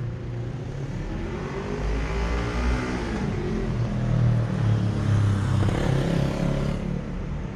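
A motor vehicle driving by on the street, its engine pitch gliding as it accelerates, loudest around the middle and easing off near the end.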